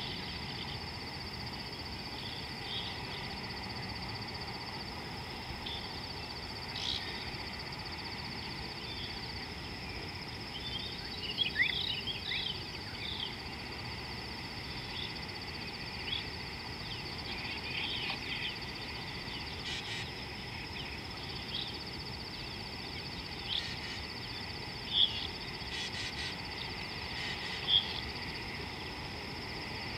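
Riverbank ambience: a steady, high-pitched insect drone with short bird chirps and calls scattered over it, a brief flurry of chirps a little before halfway and a few sharper single calls near the end.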